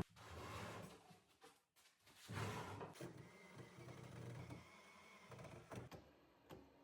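Near silence, with a short click at the start and a few faint, indistinct shop noises.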